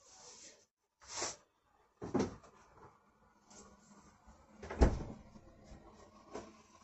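A few separate dull knocks and thumps of kitchen handling, such as a bowl and things being set down and moved about, the loudest a heavy thump about five seconds in.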